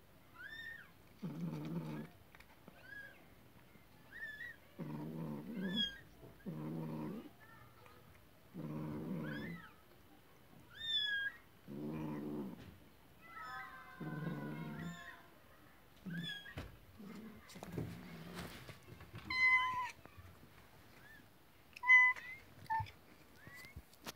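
Siamese mother cat just after giving birth, making a run of low drawn-out calls about every two seconds, with short thin squeaks of her newborn kitten between them. Near the end the high mewing grows louder.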